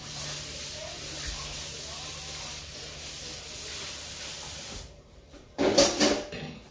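Kitchen tap running into a sink with a steady hiss and a low hum, shut off about five seconds in. It is followed by a brief loud noise, like dishes being handled.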